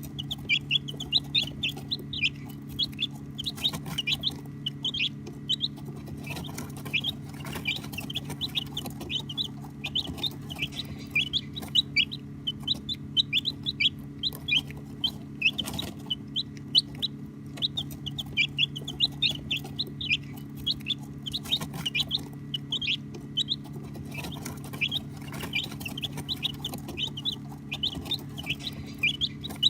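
A group of baby chicks peeping continuously: many short, high chirps overlapping, several each second, over a steady low hum.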